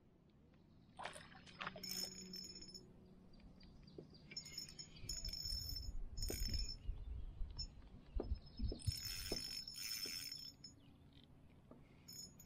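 Light metallic clinks and scattered knocks of gear being handled in a canoe, with a few dull thuds.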